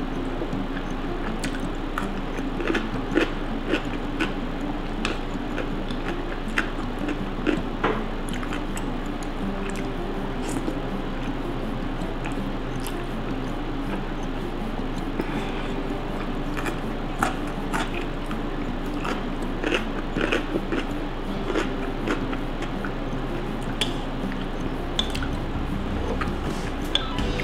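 Close-up mouth sounds of a person eating thick, saucy udon noodles with chopsticks: slurping in strands and chewing, with many short wet clicks and smacks scattered throughout.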